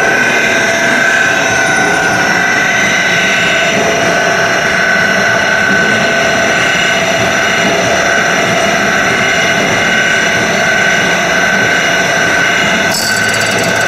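The spindle of a CNC serrated-blade grinding machine running the grinding wheel: a loud, even mechanical whine made of several steady tones.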